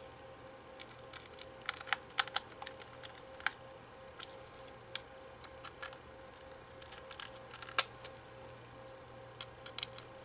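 Irregular light clicks and taps of small computer hardware and tools being handled, one sharper click near 8 seconds in, over a faint steady hum.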